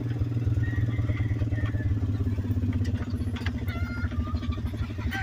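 Small engine of a ride-on farm vehicle running steadily as it drives slowly over rough ground, with a few faint short high chirps over it.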